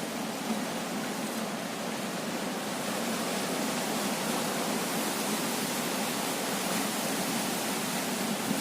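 Steady rushing noise of strong wind and water, with no distinct events.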